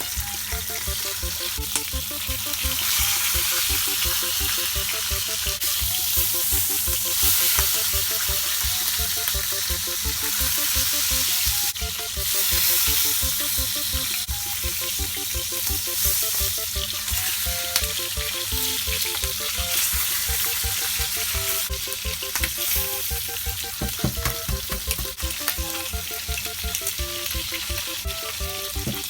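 Thick bacon sizzling in a frying pan, a dense crackling hiss that swells louder for several seconds before settling.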